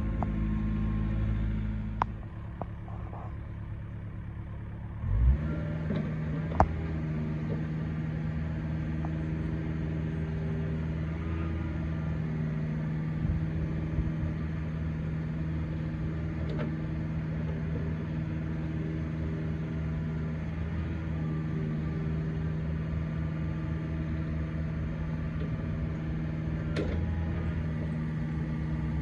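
Diesel engine of a Takeuchi TB250 mini excavator running steadily. About two seconds in it drops away; just after five seconds it comes back in with a thump and runs on evenly, with a few sharp clicks.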